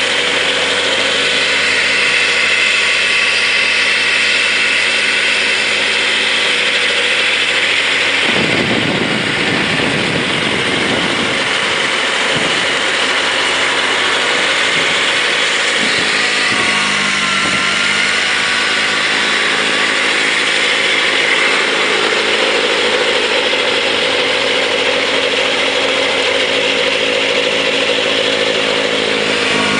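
Kubota B3030 compact tractor's three-cylinder diesel engine running steadily under load, driving its front-mounted snowblower through snow. About a third of the way in a rougher rumble joins the engine note, and a little past the middle the pitch dips and comes back up briefly.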